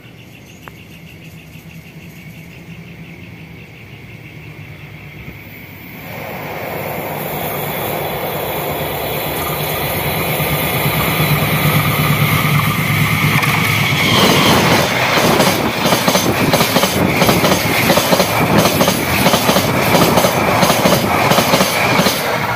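A train approaching at speed, growing steadily louder from about six seconds in, then passing close from about fourteen seconds in, its wheels clacking in a rapid rhythm over bolted rail joints.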